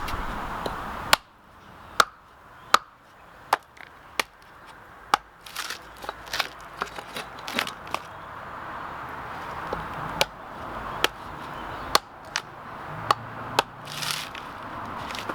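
A tool chopping into a wooden stump: a series of sharp, separate strikes about a second apart, with a quicker run of lighter ones in the middle. Some strikes ring briefly.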